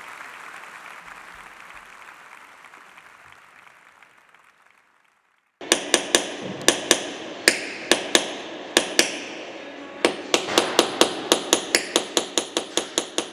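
A steady noise fades away over the first five seconds. After a moment of silence, light metal hammer taps on car body sheet metal begin, each with a short ring: irregular at first, then quickening to about three or four taps a second, as in tapping down the high spots of a paintlessly repaired hail dent.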